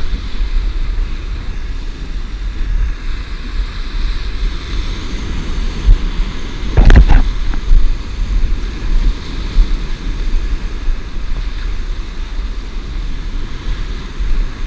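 Wind buffeting the microphone over surf washing against jetty rocks, with one louder burst about seven seconds in.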